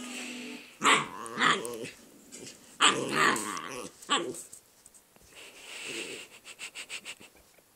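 Puppy growling in play in about four short bursts, one longer, while it chases and bites its own tail; quieter scuffling follows.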